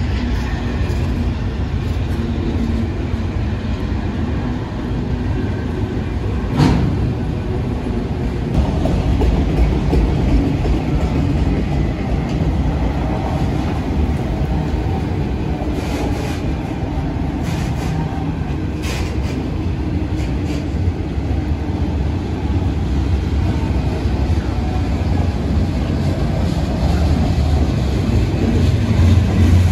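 Freight train cars (autoracks, then covered hoppers) rolling past close by: a steady rumble of steel wheels on rail, with a sharp clank about seven seconds in and a few lighter clicks later.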